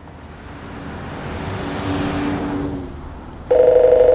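A car passes by, its engine and tyre noise swelling and then fading. Near the end an electronic telephone starts ringing loudly, a two-tone warbling ring.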